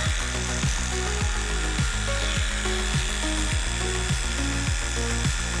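Background music with a steady beat of low notes, about two a second, over the buzz of an electric pet clipper shaving a cat's belly fur.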